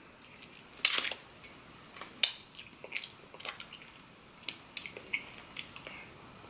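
Wet smacking clicks of fingers being licked and sucked clean of sticky cinnamon roll icing, about ten sharp smacks at uneven intervals.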